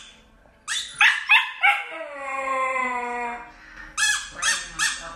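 White husky puppy giving four quick yips, then a long howl that falls slightly in pitch, then three more short yips near the end.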